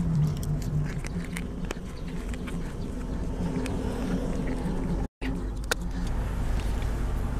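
Steady drone of distant lawn mower engines, with light clicks and rustling as a mower's fabric grass-catcher bag is worked over its wire frame. The sound cuts out for an instant about five seconds in.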